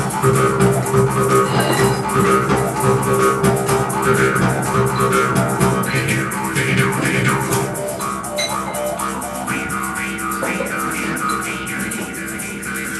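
Jaw harps droning together, their twangy overtones shifting in pitch over a steady low note, over a quick rhythm of shaker and percussion strikes. The music eases slightly in loudness partway through.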